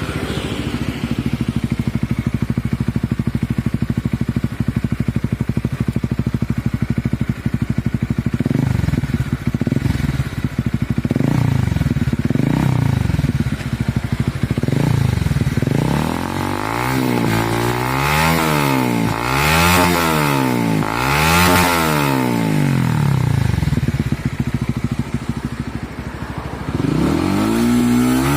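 Honda CB150R's single-cylinder engine breathing through a LeoVince LV One Mini aftermarket exhaust: it idles steadily, then the throttle is blipped several times in quick succession. It is then revved hard four times, drops back to idle, and revs again near the end.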